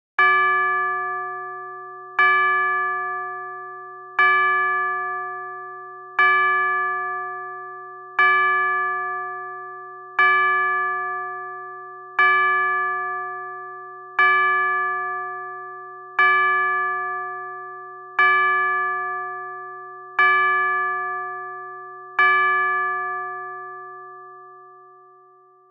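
Clock tower bell striking twelve o'clock: twelve loud strokes about every two seconds, each ringing and fading, the last dying away slowly near the end.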